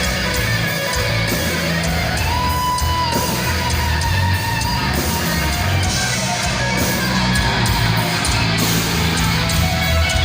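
Heavy metal band playing live: distorted electric guitars, bass and drums, with one long held note about two and a half seconds in.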